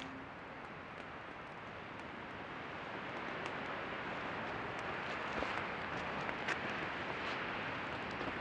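Wood campfire burning: a steady rush of flame with scattered sharp crackles and pops, growing louder about three seconds in as the fire flares up.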